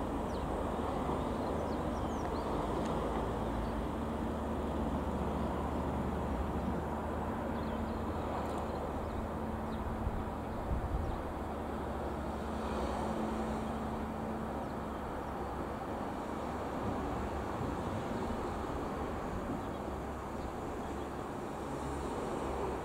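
Single-engine Piper PA-28-180 Cherokee's four-cylinder piston engine and propeller droning steadily as the light aircraft flies past.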